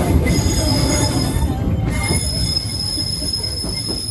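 Disneyland Railroad steam train's wheels squealing on the rails, a high, steady squeal that starts up again about two seconds in, over the train's running rumble.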